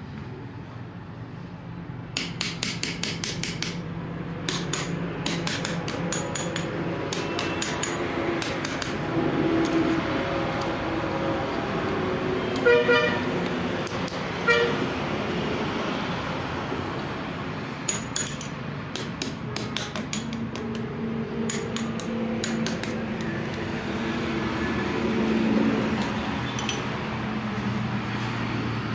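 Hand tools working on a tractor engine block: rapid metallic clicking in repeated short runs, with two louder ringing clinks of metal on metal about halfway through. A low hum runs underneath.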